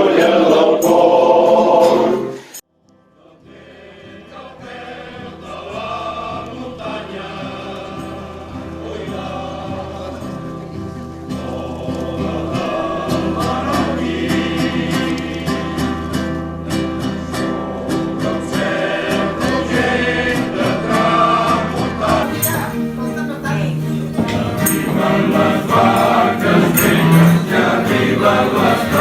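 Men's choir of tenors, baritones and basses singing an Easter song; the singing cuts off abruptly about two and a half seconds in. After a brief gap another choral piece fades in and swells gradually louder.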